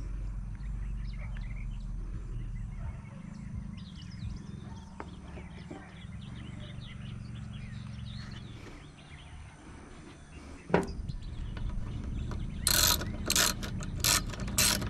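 Quiet outdoor background with a steady low rumble and faint bird chirps. Near the end, a socket ratchet wrench clicks in quick, even strokes, about three a second, as a 7 mm fastener is turned.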